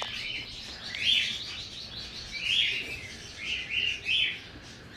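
Small pet parrots chirping, short calls repeating about once a second with fainter calls between.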